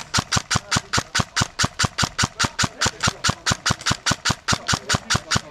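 Airsoft gun firing a steady, evenly spaced stream of shots, about five or six a second.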